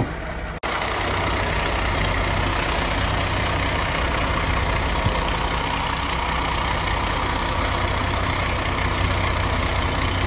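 ERF fire engine's diesel engine idling steadily.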